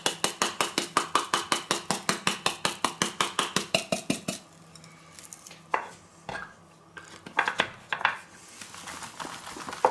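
Spice shaker tin shaken quickly over a tub of boiled potatoes, rattling at about eight shakes a second and stopping about four seconds in. A few single knocks follow as the tin is set down on the wooden board.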